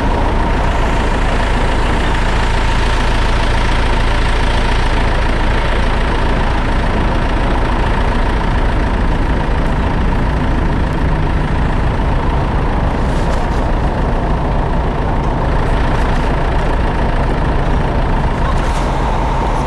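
Fire truck's diesel engine running steadily, a deep continuous drone with a thin, steady high whine over it.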